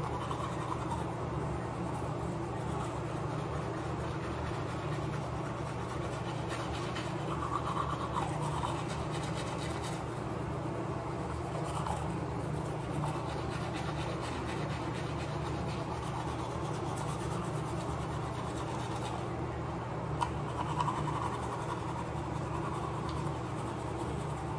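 Manual toothbrush scrubbing teeth, a wet scratchy brushing that comes and goes in strokes, over a steady low hum.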